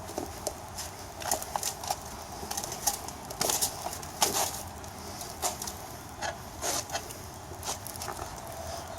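Tire irons clinking and scraping against a motorcycle wheel rim as the old rear tire is levered off by hand. It is an irregular run of sharp knocks and short scrapes, with the loudest knock about four seconds in.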